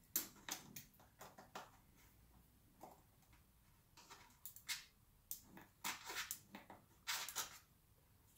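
Torx T10 screwdriver backing out the small corner screws of an iMac's LCD panel: faint, irregular clicks and scratchy scrapes of the metal bit and screws, busiest in the second half.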